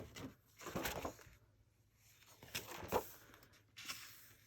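Paper rustling as pages are turned, a handful of brief swishes.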